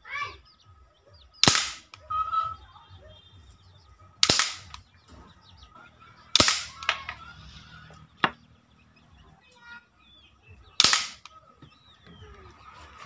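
Homemade alcohol-fuelled PVC toy gun firing 8mm steel balls: four sharp shots a few seconds apart, with a fainter click between the third and the fourth. A bird chirps once at the start.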